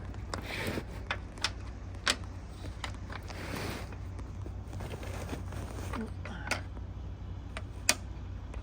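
Sharp clicks and short scrapes of small hardware being handled: mainsail cars being slid off the mast track onto 3D-printed track sections. A steady low hum runs underneath.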